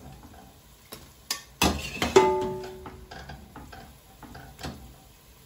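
Metal utensil knocking and clinking against a cooking pot as boiled prawns are lifted out of their water: a few sharp knocks in the first two seconds, one ringing clang just after two seconds, then lighter taps.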